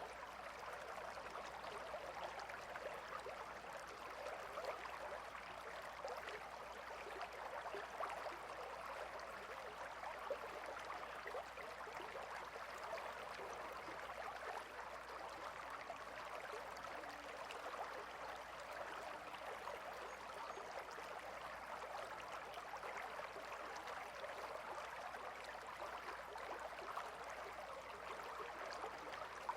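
Gentle river flowing steadily, a soft even rush of water with light babbling.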